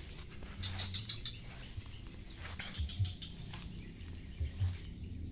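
Insects droning in one steady high-pitched tone, with the soft thumps and swishes of footsteps through tall grass.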